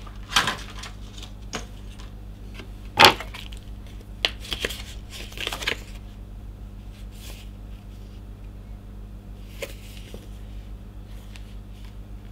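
Hand handling of a thermal paste kit's plastic packaging and thin applicator card: rustling and crinkling with a few sharp clicks, the loudest a sharp tap about three seconds in. The handling noises grow fainter and sparser after about six seconds.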